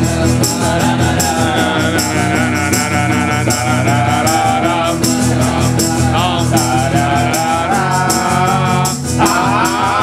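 Live acoustic song: singing over strummed acoustic guitar, with a hand shaker rattling a steady rhythm.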